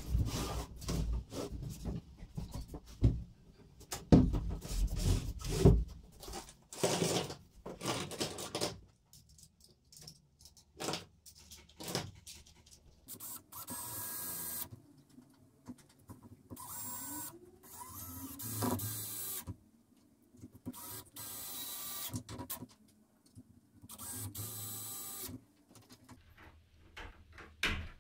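Wooden workbench frame knocking and bumping on a wooden floor as it is pushed about, then a Stanley cordless drill driving screws through a swivel caster's steel mounting plate into the timber in about five short runs of a second or two each.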